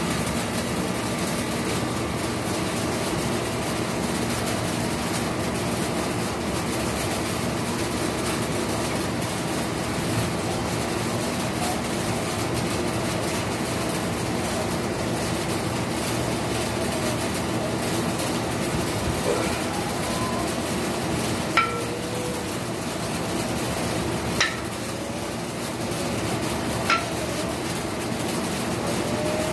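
Steady background hum, with three sharp metallic clinks in the second half, about two and a half to three seconds apart: the iron plates of two plate-loaded dumbbells knocking together at the top of bench-press reps.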